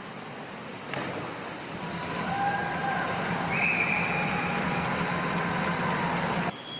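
A platform diver's entry splash into the pool about a second in, followed by several seconds of crowd noise with whistles in the pool hall, which cuts off suddenly near the end.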